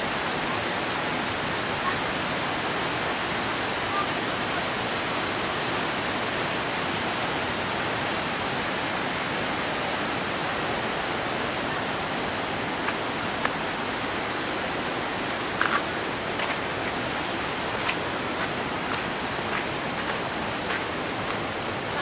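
Steady hiss of rain falling on dense tropical foliage, with a few light ticks in the second half.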